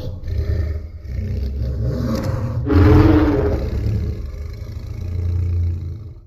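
Custom Godzilla roar sound effect: a low, rumbling monster growl that swells into a louder roar about three seconds in, then trails off and cuts off abruptly.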